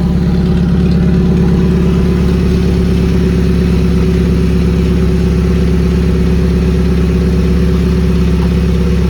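Car engine idling steadily, just after being jump-started from a dead battery.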